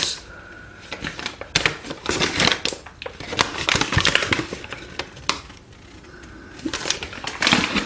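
A DCC decoder's packet and its paper instruction leaflet being handled, with irregular crinkling, rustling and small sharp clicks.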